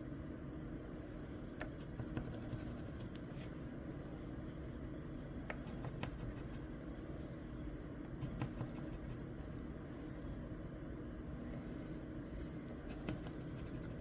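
Scratch-off lottery ticket being scratched: quiet scraping with scattered light clicks over a steady low hum.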